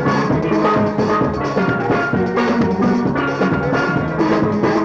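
Band music with drums and a steady beat.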